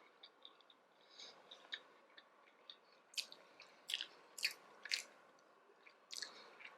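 Close-up chewing of a mouthful of tuna sushi: faint wet mouth clicks and smacks, with a few louder, sharper ones between about three and five seconds in.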